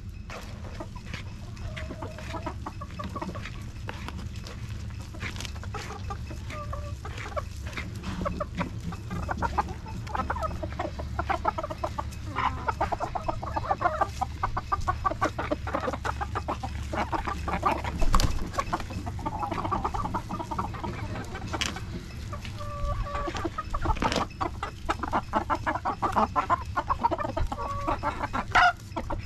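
Flock of native chickens, hens and roosters, clucking in short calls as they crowd a feed bucket. Under the calls run many short clicks and scrapes at the bucket, and there is one louder knock about two-thirds of the way through.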